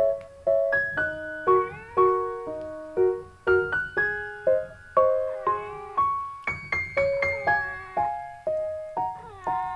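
Background piano music: a gentle melody of single struck notes, about two a second, each fading away.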